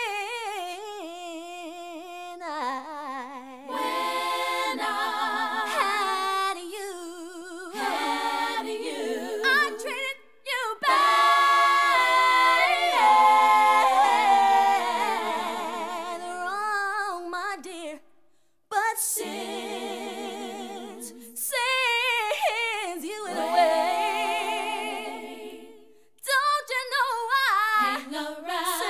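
Women's voices singing a cappella, several parts together with vibrato and no instruments, in phrases broken by short pauses.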